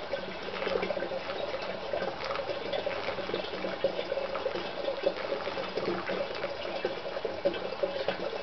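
Water being poured from a can into a 20-litre plastic drum: a steady splashing trickle as the drum fills.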